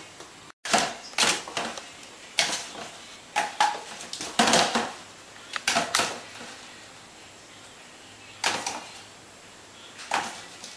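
Irregular wooden knocks and clatters, about nine in all and some in quick pairs, as a cat's paws bat a jointed wooden stick that knocks against a plastic bin. The sound cuts out briefly just after the start.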